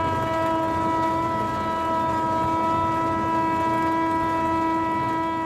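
Train horn sounding one long, steady single-note blast.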